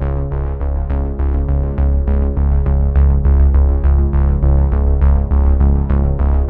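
Electronic background music: synthesizer over a steady, heavy bass, with notes repeating about three to four times a second.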